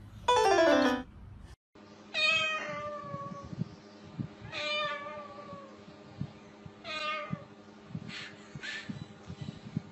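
Meowing: three drawn-out meows, each falling in pitch, about two and a half seconds apart, then two short meows near the end. A brief falling tone comes just before them, about half a second in.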